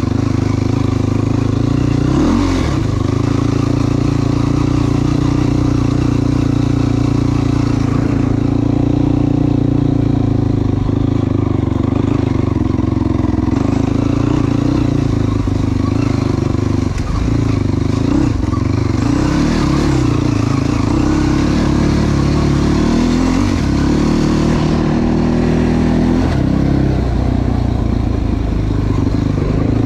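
Yamaha YFZ450 sport ATV's single-cylinder four-stroke engine running hard under way, its pitch dipping and climbing several times as the throttle is worked and gears change.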